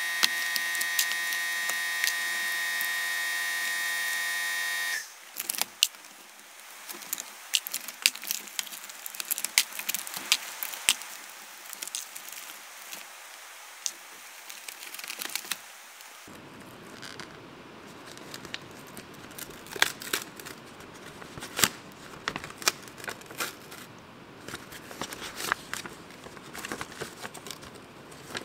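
A small high-speed grinder running with a steady whine that cuts off suddenly about five seconds in. After it, plastic packaging and paper crinkling and rustling in irregular small crackles as a parts package is handled and opened.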